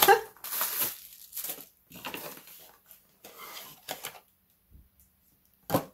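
Cardboard and paper packaging of an advent calendar compartment being handled and opened: a run of short, irregular rustling and crinkling scrapes, then a sharp click near the end.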